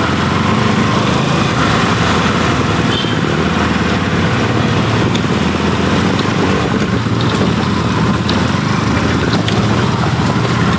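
Motorcycle engine running steadily on a muddy trail, under a constant rush of wind and tyre noise.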